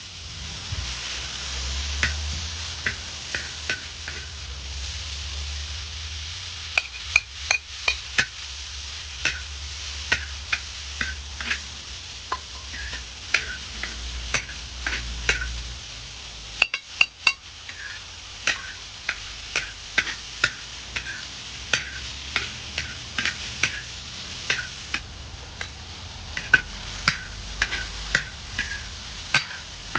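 Stir-frying hazel mushrooms with pork and chili in a large wok: a steady sizzle, with a spatula scraping and clinking against the pan many times at irregular intervals.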